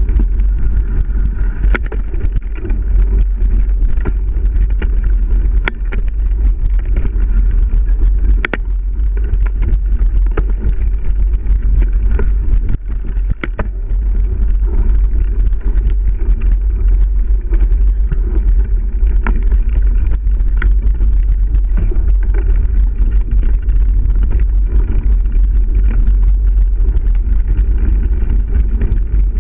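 Mountain bike riding fast over a dirt trail, heard as a steady low rumble of wind buffeting the camera microphone, broken by scattered sharp clicks and knocks from the bike jolting over rough ground.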